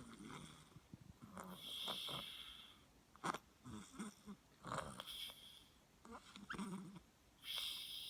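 Snoring: a rasp on each of several breaths, some carrying a high whistling wheeze.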